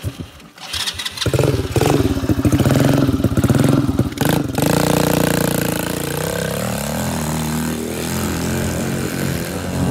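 Small engine of a go-kart cranked by its key starter, catching about a second in and revved hard. After a brief break it runs steadily, its pitch easing lower as the kart pulls away.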